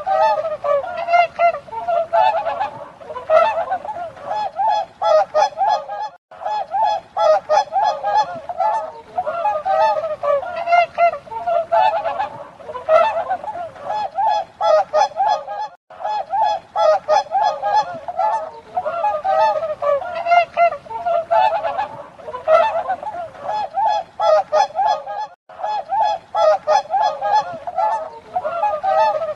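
A flock of swans honking, many calls overlapping in a continuous din, with short breaks about every ten seconds.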